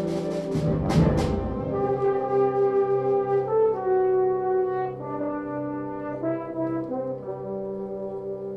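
Concert band playing a slow, brass-led passage of held chords whose notes shift every second or so, after a sharp percussion hit about a second in.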